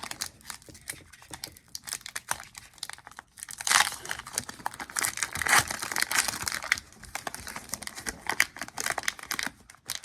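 Foil wrapper of a Pokémon trading-card booster pack crinkling and being torn open by hand, with louder rips about four and five and a half seconds in.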